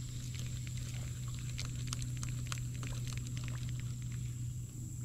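Electric trolling motor humming steadily, with a flurry of small clicks and taps in the first few seconds.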